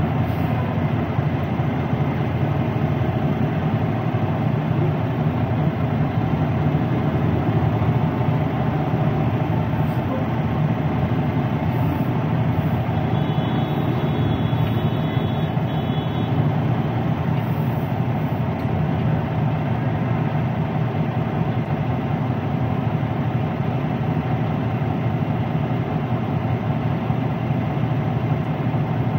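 Semi truck's diesel engine running steadily at low revs while the rig reverses slowly.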